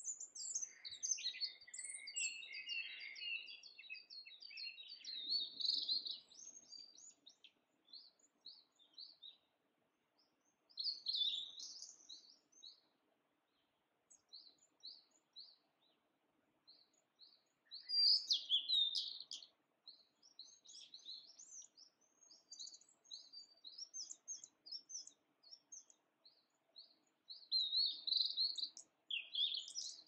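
Wild songbirds chirping and singing: a dense run of short high chirps at the start, then scattered notes broken by a few louder song phrases.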